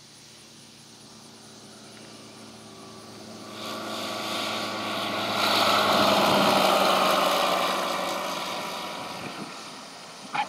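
A single-engine propeller light-sport aircraft flying past low: engine and propeller sound building over the first few seconds, loudest around the middle, then fading away. A short click near the end.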